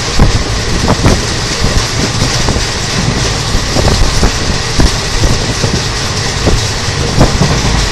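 An Indian Railways express train running past at speed: a loud, steady rumble with irregular knocks from the wheels.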